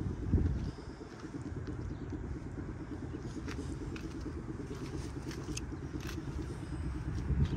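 Steady low rumble of a car driving, with a brief louder thump about half a second in and another near the end.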